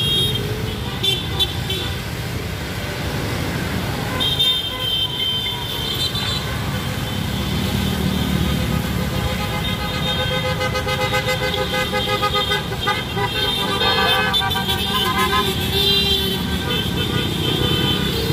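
Several vehicle horns honking over the steady rumble of engines in slow traffic. The horns come in overlapping held toots from about four seconds in.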